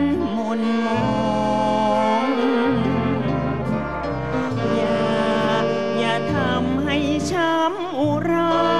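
A Thai luk krung song played by a dance band, with brass prominent, as a woman sings with vibrato into a microphone.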